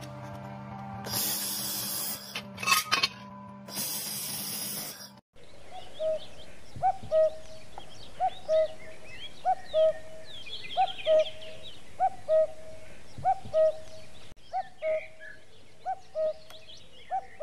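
A welding machine hums steadily while a handheld welding gun fires in loud hissing bursts. About five seconds in this gives way to birds calling: one bird repeats a short call at the same pitch over and over, with the faint chirps of other birds behind it.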